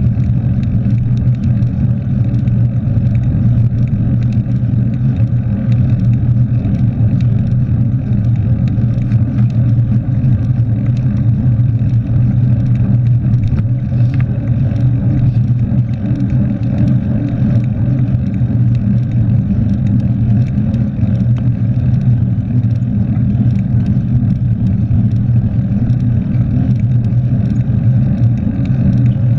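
Steady, loud rumble of wind buffeting a bike-mounted GoPro's microphone, mixed with mountain-bike tyres rolling on asphalt at speed.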